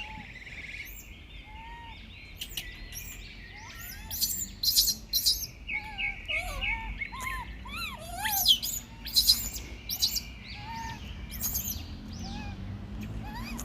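Several birds chirping, with many short, quick calls overlapping; the calling gets busier from about four seconds in.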